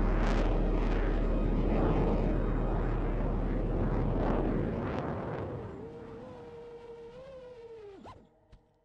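Background music with deep bass booms and rising swells, fading out over the last few seconds. A single held note is left, then drops sharply in pitch and cuts off near the end.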